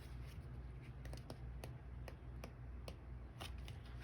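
Faint, irregular light clicks and taps of thick cardstock postcards being handled and leafed through one by one, over a low steady hum.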